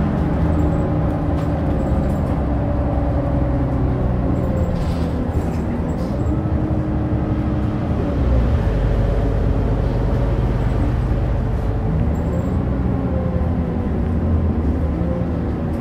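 Mitsubishi Fuso LKG-MP37FKF city bus heard from inside the cabin while driving: a steady diesel engine and drivetrain drone. The engine note slowly falls over the first few seconds and rises again about twelve seconds in and near the end, with a few faint clicks and rattles.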